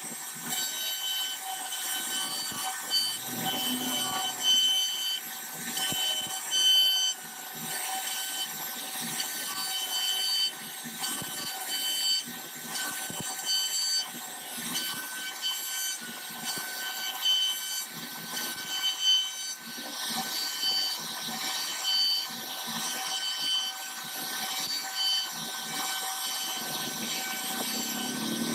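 CNC router spindle whining steadily while its bit cuts into khat wood, with a noisy cutting hiss. Short higher tones come and go throughout.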